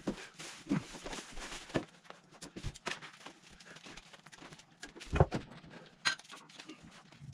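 Irregular handling knocks, taps and rustling as a roll of plastic sheeting and a telescoping pole for a plastic dust barrier are handled, with the loudest knocks about five and six seconds in.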